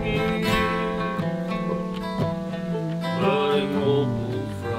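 Steel-string acoustic guitar strummed through an instrumental break between sung verses of a folk song, with long held melody notes over the strumming.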